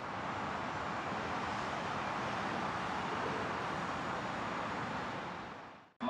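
Steady rushing background noise, even and without any tone, that fades out near the end.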